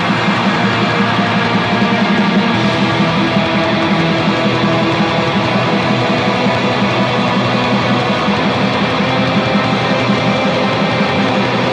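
Atmospheric black metal: a dense wall of distorted electric guitars holding droning chords at a steady, loud level.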